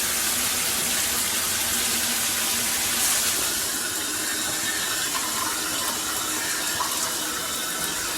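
Shower head spraying water in a steady hiss, briefly louder and hissier about three seconds in.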